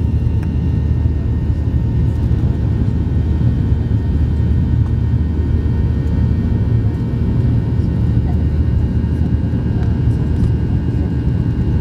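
Airliner cabin noise: a steady, loud low rumble of engines and airflow heard from inside the cabin, with faint steady whining tones above it.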